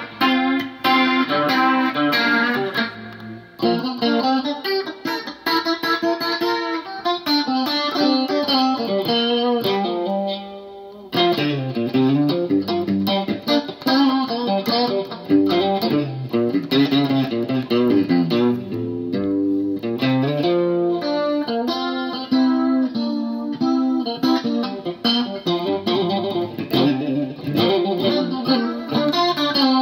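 Electric guitar played through a Danelectro Money Laundry rotary speaker emulator pedal, giving Leslie-style spinning-speaker modulation. It mixes chords and single notes, with short pauses about 3.5 s and 10 s in.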